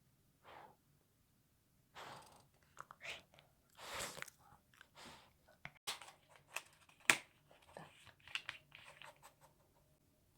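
Close-up chewing and crunching of food, in irregular short bites with a few sharp clicks.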